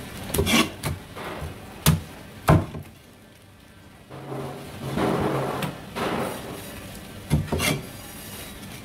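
Large knife knocking and chopping on a thick wooden chopping block while a stingray is cut up, with sharp knocks about half a second, two seconds and two and a half seconds in and a quick pair near the end, and handling of the wet carcass between them.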